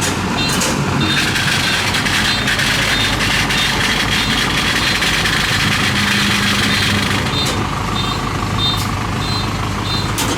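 A farm tractor's engine runs steadily, getting louder for a few seconds in the middle. Short high beeps repeat at even spacing in the first second and again from about seven seconds in.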